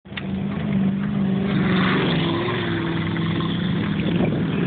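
A vehicle's engine running steadily while driving, heard from inside the cab, its pitch shifting slightly.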